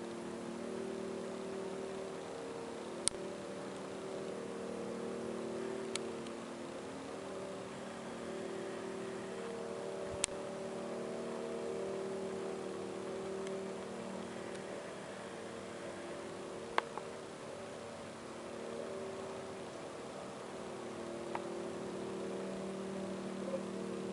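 A distant, unexplained droning hum: several steady low tones layered together, slowly swelling and fading, with a handful of sharp clicks over it. The recordist has no idea what makes it.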